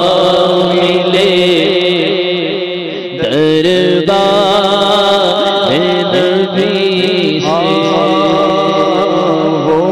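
Unaccompanied naat: a man's voice singing long, drawn-out notes that slide between pitches, over a steady low drone, with a short drop in level about three seconds in.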